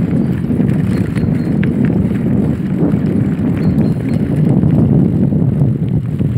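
Mountain bike ridden fast over a dirt forest trail: a loud, steady low rumble of wind on the microphone and tyres on the ground, with scattered rattles and clicks from the bike over bumps.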